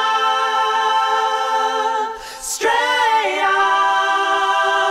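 Outro music of voices singing a cappella in long held notes. About two seconds in there is a short break, then a new held note that slides down to a lower pitch and holds.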